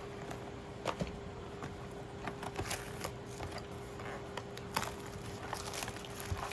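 Scattered crackles and clicks of trading-card packaging being handled as a booster box is opened and its foil packs pulled out, over a faint steady hum.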